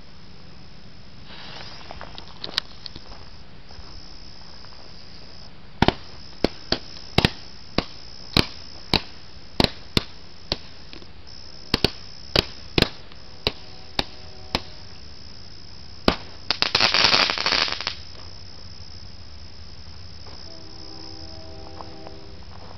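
Fireworks going off: starting about six seconds in, a run of sharp single bangs roughly every half-second for about ten seconds, then a burst of dense crackling lasting about a second and a half. Crickets trill steadily underneath.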